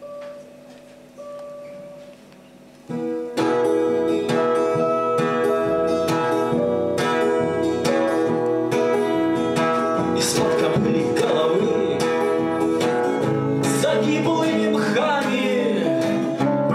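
Two single guitar notes plucked about a second apart, then about three seconds in an acoustic guitar and an electric guitar start playing a song together. A man's singing voice comes in about ten seconds in.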